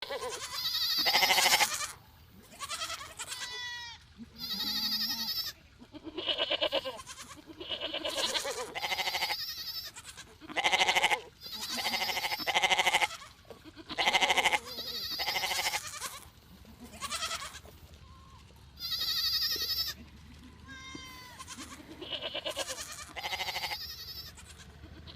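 Sheep bleating over and over, a long series of separate calls each about a second long, with a wavering, quavering pitch.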